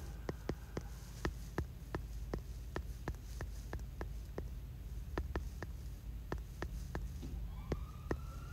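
Quick fingertip taps on an iPad's on-screen keyboard, about three clicks a second, with a short pause about four seconds in, over a steady low hum.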